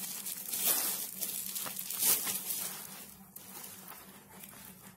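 Clear plastic wrapping around a pair of soft slippers crinkling and rustling as hands handle and pull it back, with sharp crackles in the first two seconds that fade out after about three seconds.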